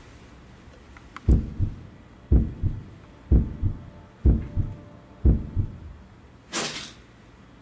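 Heartbeat sound effect for suspense: five low double thumps, lub-dub, about a second apart. A short rushing swish follows near the end.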